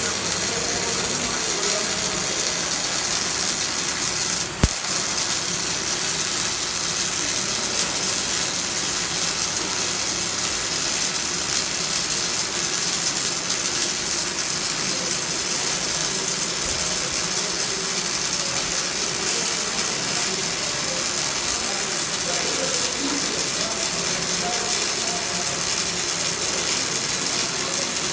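Semi-automatic wire-feed arc welder running continuously, the arc giving a steady, dense crackle, with one sharp click about four and a half seconds in.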